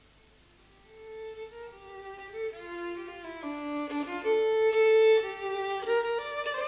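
Fiddle music starts about a second in: a melody of separate held notes that grows louder.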